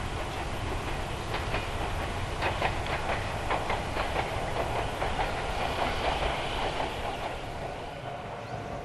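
Electric commuter train running past, its wheels clicking over the rail joints in a run of sharp clacks over a steady rumble, then fading away near the end.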